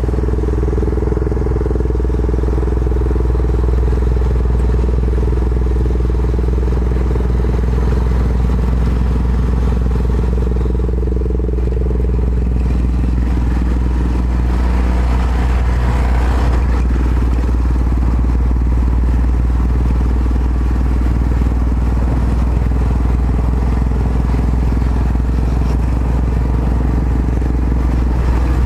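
Yamaha XT660Z Ténéré's single-cylinder 660 cc four-stroke engine running steadily while the motorcycle is ridden, with a shift in its note about twelve seconds in.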